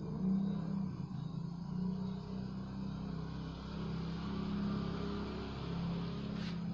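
A steady low mechanical hum with a slightly wavering pitch, like a distant engine running, over a faint hiss.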